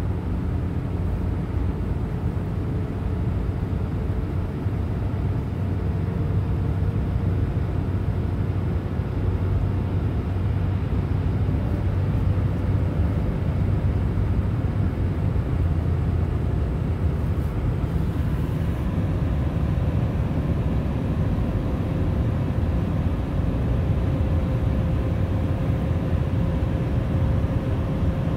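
Steady low rumble of road and engine noise inside a car's cabin at highway speed, with a faint steady whine that rises slightly near the end.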